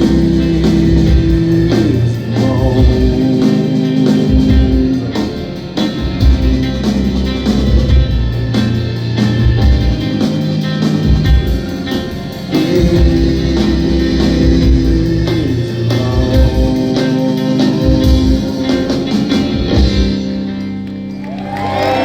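Live rock band playing an instrumental stretch with no vocals, steady bass notes under a repeating pattern and drums; the music thins out and drops in level shortly before the end.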